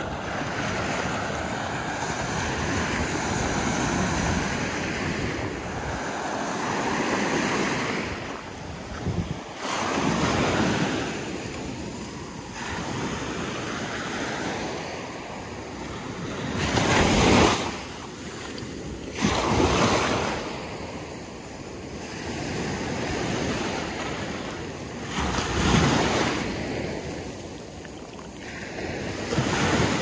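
Small ocean waves breaking at the water's edge and washing up the sand, the surf swelling and falling every few seconds with several louder surges. Wind buffets the microphone throughout.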